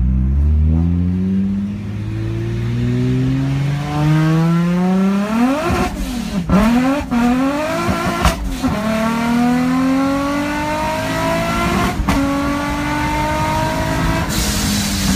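Nissan 350Z's VQ35 V6 under full throttle, heard from inside the cabin, revving out through the gears: the engine pitch climbs steadily, breaks and drops at upshifts about six seconds in and near twelve seconds, then climbs again.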